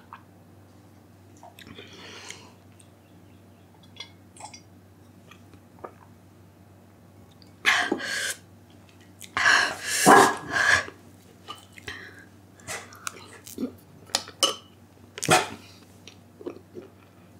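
A person sipping and swallowing quietly, then breaking into several loud, harsh coughs about halfway through and once more near the end, a reaction to the burn of the extremely hot chili chip.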